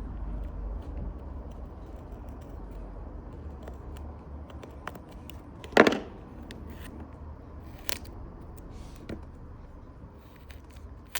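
Small handling sounds of an iPhone 6S being worked on at a repair bench: faint crackling and scraping as the protective sticker is peeled off its new screen, with one sharp knock about halfway through and a lighter click a couple of seconds later.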